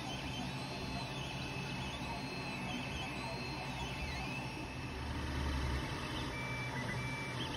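Creality Ender 3 Pro 3D printer running a print: its stepper motors whine in repeated rising-and-falling pitch sweeps, roughly one a second, as the print head speeds up and slows down on each move. Under them is the steady hum of its cooling fans, with a low rumble swelling briefly about five seconds in.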